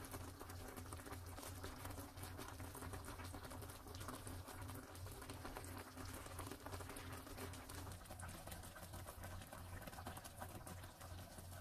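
Thick creamy mushroom sauce simmering in a frying pan, a dense run of small bubbling pops and crackles over a steady low hum.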